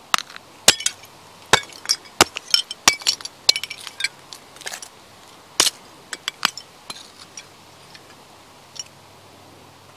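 Vintage china plates cracking and crunching under stomping work boots: a run of sharp clinks and snaps of breaking crockery, densest in the first few seconds and thinning out after about seven.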